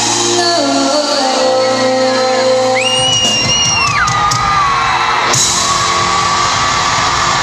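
Live rock band with a woman singing long, gliding held notes into the microphone. From about halfway through, crowd screams and cheers swell under the music, and a bright hiss of cymbals or crowd noise comes in suddenly near the end.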